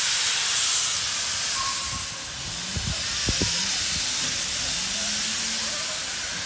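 Small steam tank locomotive hissing steam: a loud hiss that eases off about two seconds in to a softer steady hiss, with a couple of low knocks shortly after.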